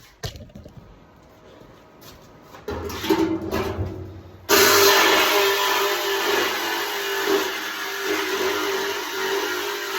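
Electric saw cutting through the thin sheet steel of a 55-gallon barrel, starting abruptly about four and a half seconds in and running steadily with a constant hum under a harsh hiss. Before it, a few knocks and rumbles of the tool being handled against the barrel.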